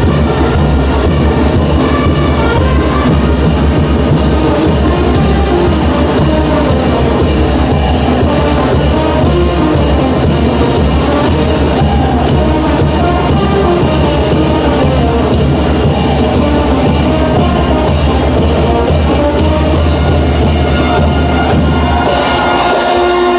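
Brass band playing a chinelo dance tune: bass drum and cymbals keep a steady, even beat under the horns, and the brass stands out more clearly near the end.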